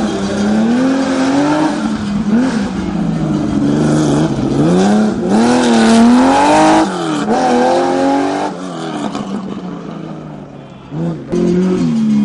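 Historic rally car engine revving hard at full throttle, its pitch climbing and dropping sharply with each gear change, then fading away. Near the end another rally car's engine comes in abruptly at high revs.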